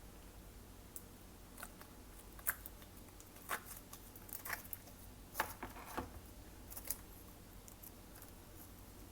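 Hands working glossy slime, giving a scattering of short sticky clicks and small pops, with the busiest stretch in the middle and quieter toward the end.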